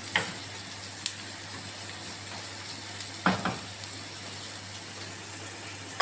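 Chopped carrots and onion sizzling in a frying pan as they are stir-fried. A utensil clicks and knocks against the pan a few times, loudest twice in quick succession about three seconds in.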